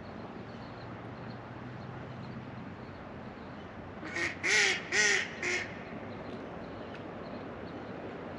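A duck quacking four times in quick succession about four seconds in, the middle two quacks loudest, over the steady wash of the river.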